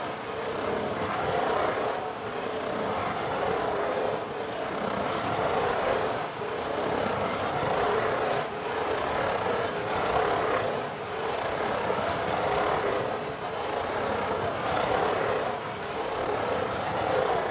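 Fingers scratching in circles on the corrugated cardboard lid of a Pizza Hut pizza box: a continuous scratchy rasp that swells and fades with each circle, every second or two.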